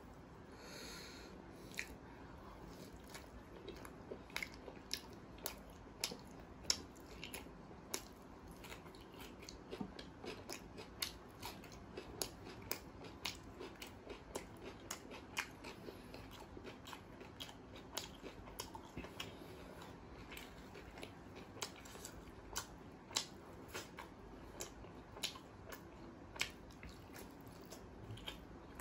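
Close-miked chewing of butter naan and curry, with frequent sharp wet mouth clicks and smacks, about one or two a second.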